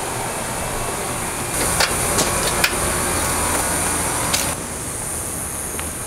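Steady outdoor hum and hiss, like a running air-conditioning unit, with a higher hiss joining for a few seconds in the middle and a few sharp clicks about two seconds in and again near four seconds.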